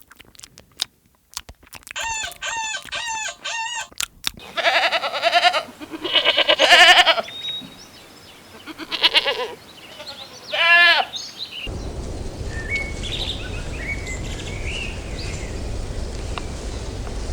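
Goats bleating several times in loud, wavering calls, after a short run of repeated clucking calls from a chicken. From about twelve seconds in, a steady outdoor background with a low rumble and a few faint bird chirps.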